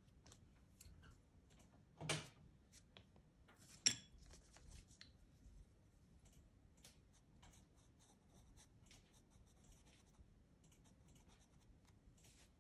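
Faint scratching of soft pastel and a pastel pencil in many short strokes on textured pastel paper, with two louder knocks, one about two seconds in and a sharper one near four seconds.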